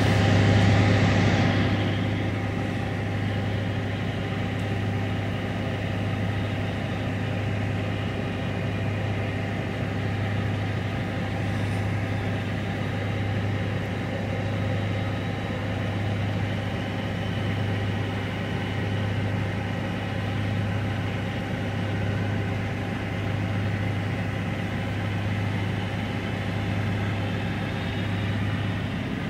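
An engine idling with a steady, deep, even hum; a louder rushing noise fades out over the first couple of seconds.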